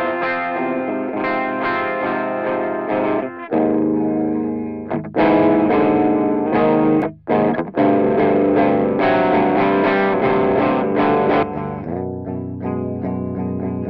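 Distorted electric guitar riff played back from a DI recording through a Howler boost plugin, with a brief stop about seven seconds in.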